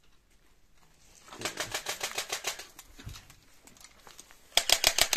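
Rapid crunching and rustling, about eight crackles a second, of footsteps pushing through dry undergrowth and debris. It comes in two spells: a softer one about a second in and a much louder one near the end. A single low thump sounds in between.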